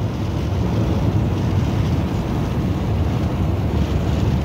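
Steady low rumble of tyres, engine and wind heard inside a car's cabin while cruising at highway speed.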